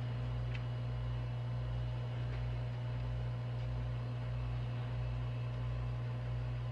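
A steady low hum with a slow, even throb beneath it, about twice a second.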